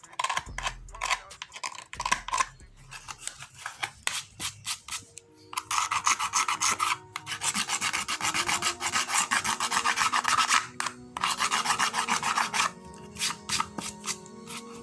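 Rapid rasping strokes of a file or scraper worked over a plastic part, in two long spells through the middle after a few scattered taps. Rap music plays faintly underneath.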